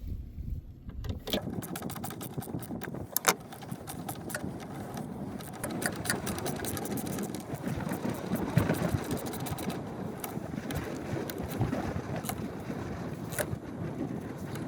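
Ratchet wrench clicking in quick runs as the nut on a truck battery's negative terminal is tightened down. A steady rushing noise runs underneath.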